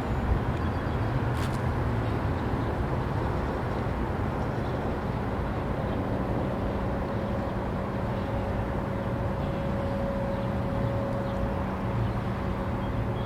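Rail bascule bridge's drive machinery running as the raised leaf is lowered: a steady low rumble with a steady machine hum that grows stronger about halfway through.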